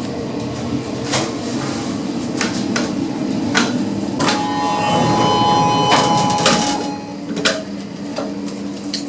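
Schindler machine-room-less passenger lift in use: a steady low hum of the running lift with scattered sharp clicks. A held electronic two-note tone sounds from about four to nearly seven seconds in.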